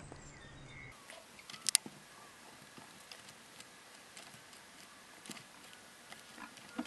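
Faint room noise with a few small, sharp clicks and taps from handling paint pots and a brush while painting a miniature.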